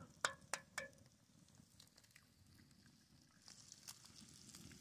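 Three quick sharp taps close together near the start, an egg being cracked against a cast iron skillet, then faint crackling and sizzling from the wood fire and the pan of bacon, growing a little near the end.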